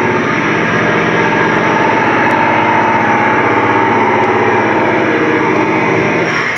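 Loud, steady engine-like machine noise with a constant drone, cutting off abruptly at the very end.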